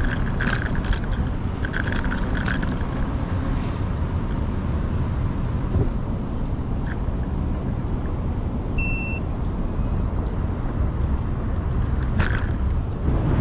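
Steady low rumble of wind on the microphone and tyre noise from a moving Segway Ninebot Max electric scooter. There are a few light rattles near the start, and a short high beep about nine seconds in.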